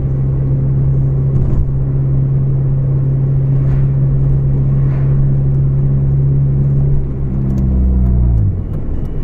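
Volvo 440's four-cylinder engine running through a broken, leaking exhaust: a loud, steady low drone that drops in pitch around eight seconds in as the engine slows.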